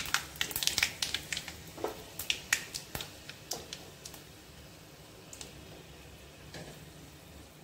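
Panch phoron seeds and whole spices crackling in hot mustard oil in a kadhai: sharp pops, dense at first, thinning out after about three and a half seconds, with only a few more after that.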